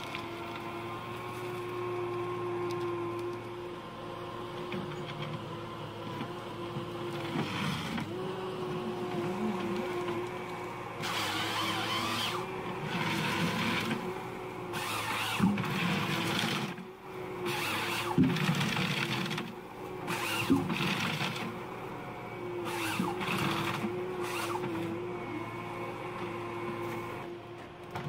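Ponsse Ergo 8W wheeled forest harvester running with a steady hum. From about the middle on, its H7 harvesting head works spruce stems in repeated noisy bursts of a second or two each.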